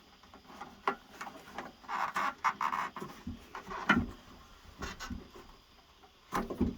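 Rubber window gasket being pushed and worked into a truck door's glass channel: irregular scraping and rubbing with several light knocks and clicks.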